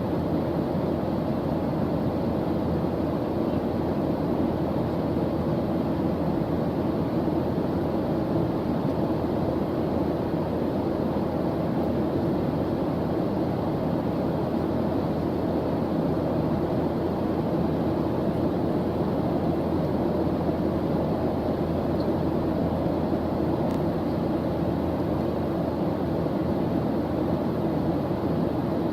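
A steady, unchanging noise track, deep rather than hissy, with no breaks or events: a white-noise-style ambient sound.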